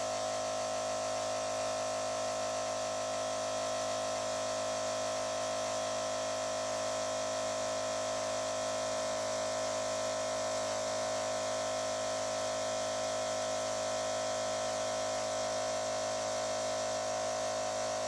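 Magtopressor KW215 magnetically driven air compressor running steadily while compressing ambient air into a 5-litre tank: a constant buzzing hum dominated by one strong tone with many overtones.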